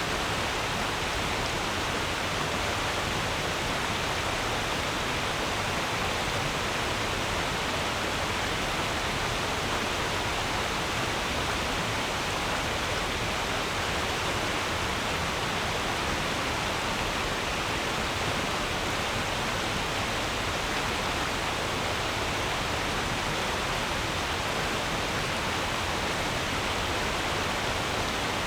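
Stream water running and babbling over stones: a steady, even rush that does not change.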